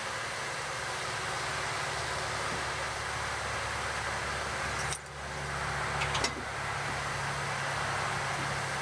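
Electric blowers on a wood-gas gasifier running steadily, pulling air through the freshly lit fire, a whooshing hiss over a low hum. About five seconds in the sound dips briefly, and a few sharp clicks follow a second later.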